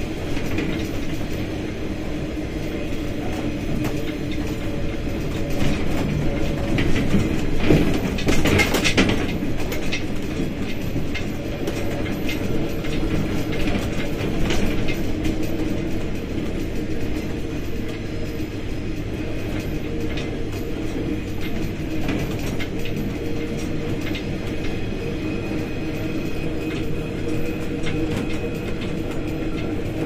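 Diesel locomotive running along the line: a steady engine drone under rattling and clicking from the wheels and running gear. A louder swell of noise comes about eight seconds in.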